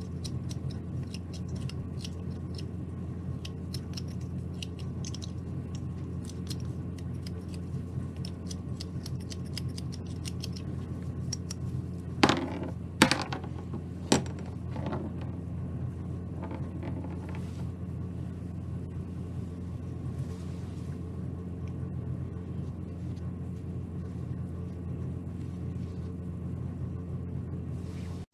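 Carving knife taking small paring cuts in a basswood ball, a run of light clicks and scrapes. About twelve seconds in come three sharp knocks as the ball and knife are set down on the cutting mat, then quieter handling, all over a steady low hum.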